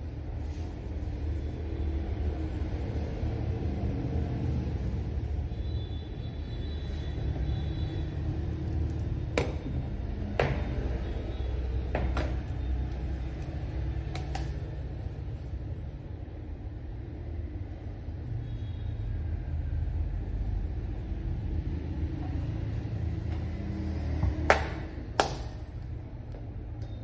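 Sharp plastic clicks and knocks from handling a Dell Latitude 5285 tablet and its detachable keyboard, over a low steady rumble. A few come in the middle, and the two loudest come near the end as the tablet is set back onto the keyboard.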